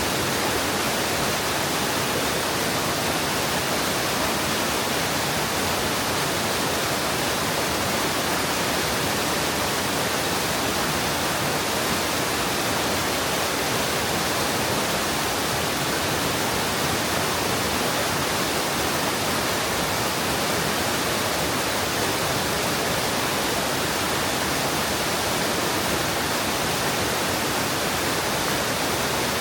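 Mountain stream water rushing and cascading over rocks into a pool: a steady, unbroken hiss with no changes.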